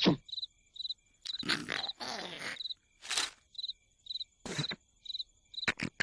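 Cartoon night ambience of a cricket chirping in short, high chirps about twice a second, broken by several short rushing noises, the loudest about a second and a half in.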